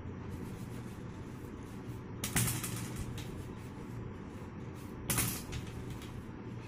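A steady low hum with background noise, and two brief louder noises, one a little over two seconds in and one about five seconds in.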